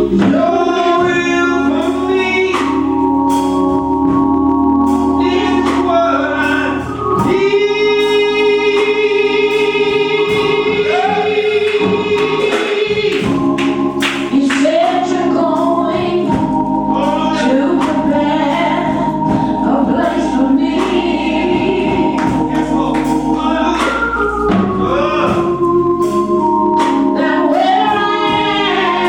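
Gospel choir singing with organ accompaniment, voices holding long notes over sustained chords.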